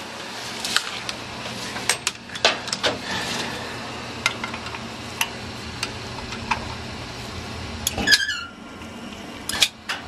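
Steady hum of running hot-water heating equipment, with scattered clicks and knocks of handling. A short squeak falls in pitch about eight seconds in as a screwdriver turns the aquastat's temperature setting.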